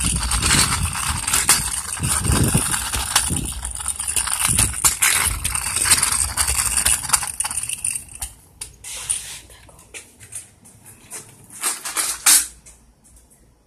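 Crunching and rustling from walking with a handheld phone camera, with many clicks throughout. After about eight seconds it drops to quieter, scattered clicks and knocks.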